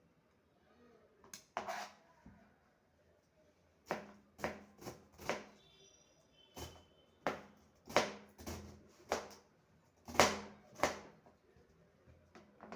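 Knife chopping on a cutting board: about fourteen sharp strokes at uneven intervals, roughly one or two a second.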